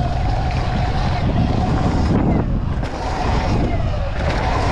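Sur-Ron electric dirt bike riding over dirt jumps and rollers: the electric motor's whine rises and falls with speed over a heavy, continuous rumble of wind buffeting the microphone and tyres on dirt.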